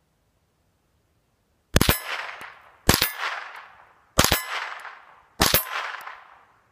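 Ruger 10/22 semi-automatic .22 rimfire rifle firing four shots about a second and a quarter apart, each sharp crack followed at once by the ringing clang of a struck steel target that dies away over about a second.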